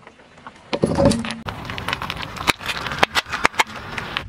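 A car tyre rolling onto a seashell and crushing it on asphalt: a loud crunch about a second in, then a run of sharp cracks and crackles as the shell breaks apart.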